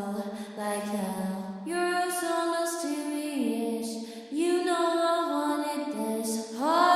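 Pop song demo: a female voice singing a melody with sustained, gliding notes and only light accompaniment.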